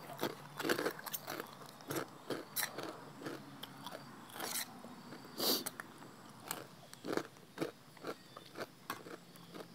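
A person chewing crisp fried pork rinds close to the microphone, with irregular crunches a few times a second.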